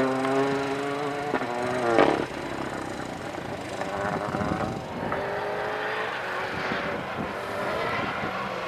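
Rally car's engine running hard with a steady high note, cutting off with a sharp crack about two seconds in, then heard more faintly as the car draws away down the road.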